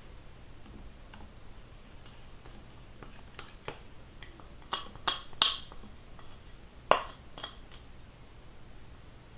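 Scattered light clicks and taps of kitchen handling, a few sharp ones about halfway through and one more a little later, while beaten egg yolk is poured onto meringue in a glass bowl.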